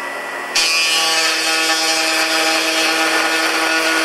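Table-mounted router with a 5/32-inch bit running at speed, then about half a second in the bit bites into the end of a plywood drawer front and cuts a groove. The cut is louder and steady with a whine over it. This is the first, half-depth pass of a two-pass cut.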